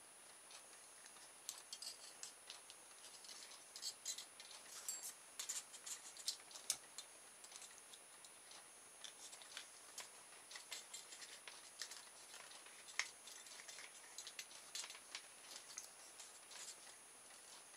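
Faint, irregular small clicks and rustles of fingers handling a plastic motor-kit base and working thin wire into it.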